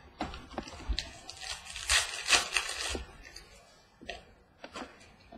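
Trading cards and pack wrappers handled on a table: light clicks and slides of cards, with a louder papery rasp, like a wrapper tearing, lasting about a second around two seconds in.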